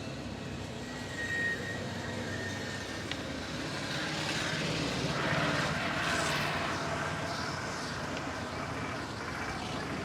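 Street traffic noise: a motor vehicle's engine running, growing louder about midway as it passes, over a steady background hum.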